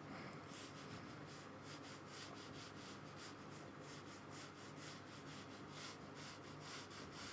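Paintbrush rubbing across watercolour paper in quick, repeated short strokes, about three to four a second, faint, starting just after the start.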